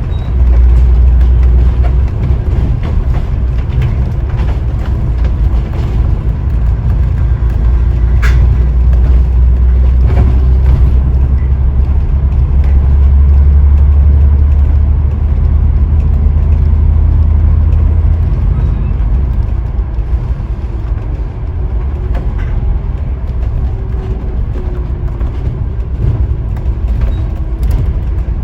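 Scania N94UD OmniDekka double-decker bus running, heard from on board: a heavy, steady low engine and road drone that eases off about two-thirds of the way through, with a few faint rattles.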